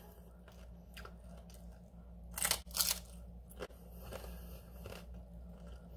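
Biting into crispy fried tostaditas topped with salsa and cheese, then chewing: two loud crunches about two and a half seconds in, followed by a few fainter ones.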